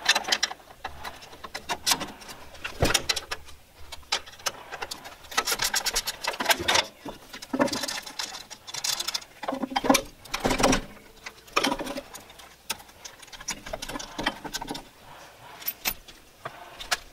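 Wrench working on the burner-tube fittings of a Weber gas grill, with irregular metal clanks and knocks and stretches of rapid clicking, as the old burner tubes are worked loose.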